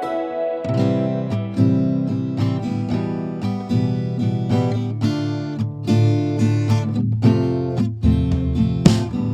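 Instrumental background music: acoustic guitar plucking and strumming over low notes, starting about half a second in.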